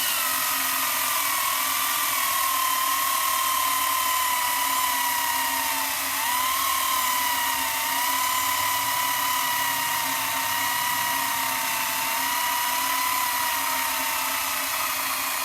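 Makita XCU06 18-volt battery top-handle chainsaw with a 1/4-inch pitch chain, cutting steadily through a thick piece of sugar maple near the limit of its capacity. The motor's whine sags under the load and picks back up as the cut is feathered to keep the chain from stalling, with a clear dip about six seconds in.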